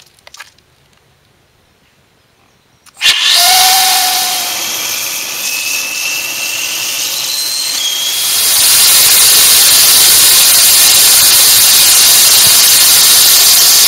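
Gaseous-oxygen/acrylic hybrid rocket motor firing: about three seconds in it breaks into a sudden loud rushing hiss, with a few short whistling tones drifting upward. About eight seconds in it grows louder and then holds steady.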